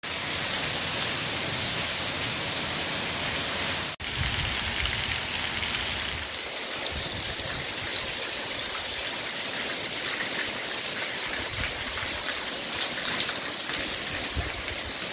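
Heavy monsoon rain pouring steadily, a dense even hiss of rain on paving and roof, broken by a brief gap about four seconds in.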